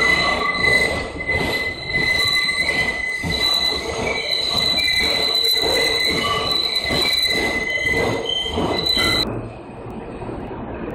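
Subway train wheels squealing against the rails: a loud, steady high-pitched screech with shifting whistling overtones over the rumble of the train. It cuts off abruptly about nine seconds in, giving way to quieter, muffled station noise.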